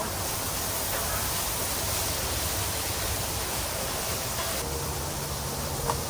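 Steady sizzling hiss of chicken and vegetable stir fry frying on a hot flat-top griddle.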